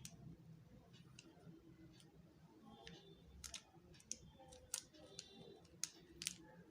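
Scattered sharp clicks of a coreless magnetic 3x3 Rubik's cube's plastic pieces knocking and snapping together as its layers are turned by hand. The clicks are irregular, with the sharpest few near the end.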